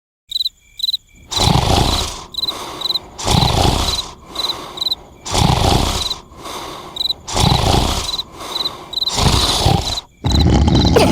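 A person snoring loudly, a rasping snore about every two seconds, with short high-pitched chirps repeating in the gaps between snores.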